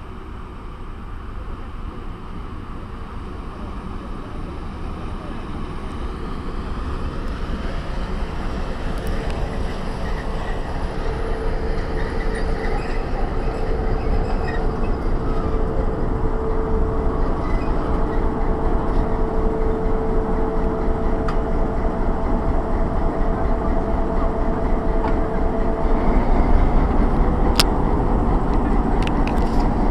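PKP electric-hauled passenger train rolling past along the platform, growing steadily louder as the locomotive and coaches come level. A steady whine holds from about nine seconds in until a few seconds before the end, and a few sharp clicks come near the end.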